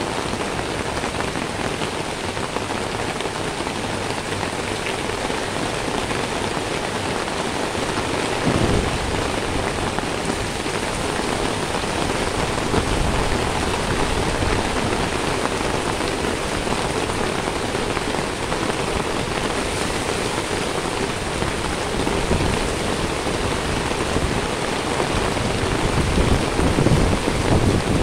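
Steady rain falling on wet pavement, a dense even hiss. A low thump comes about eight seconds in, and gusty low rumbling builds near the end.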